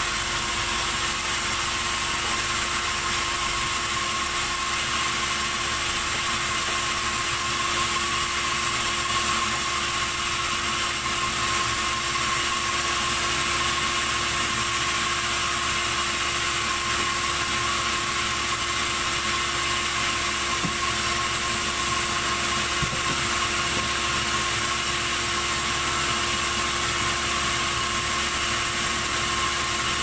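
Sawmill band saw running steadily: a continuous machine noise with steady high whining tones that does not change.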